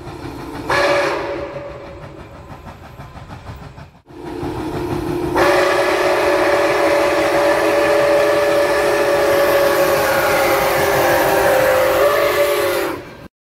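Steam locomotive whistle from Nickel Plate Road 765, a 2-8-4 Berkshire, sounding several tones at once over a low rumble. A short blast comes about a second in and dies away. After a cut, a long steady blast starts at about five and a half seconds and holds for some eight seconds before cutting off abruptly near the end.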